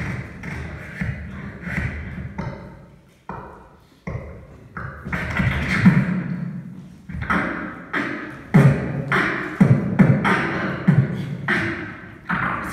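Live beatboxing: a vocal beat of bass-drum kicks with snare and hi-hat clicks, dropping almost to nothing for a moment about three seconds in, then coming back with heavier kicks in the second half.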